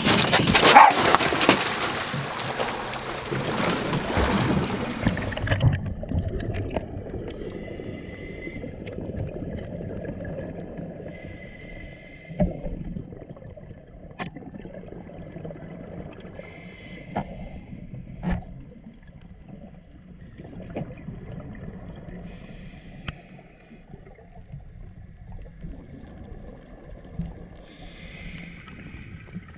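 Scuba diver going into the sea: a loud rush of splashing and bubbles for about the first five seconds, cutting off suddenly. Then comes the muffled underwater sound of the descent, with the diver's scuba regulator breathing and bubbles every four to five seconds and a few sharp knocks.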